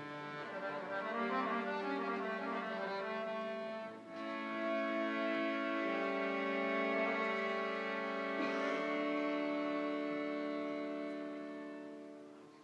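Accordion playing solo: quick runs of notes over held chords, a short break, then long sustained chords that die away near the end.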